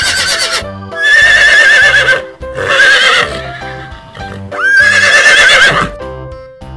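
Horse neighing: a string of loud whinnies with a shaking, wavering pitch, four in all, the last near the end, over light background music.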